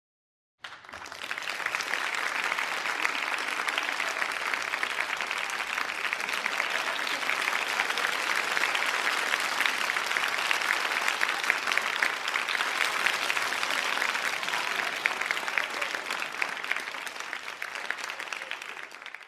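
Applause from a crowd: dense clapping that starts abruptly about half a second in, holds steady, and fades away at the end.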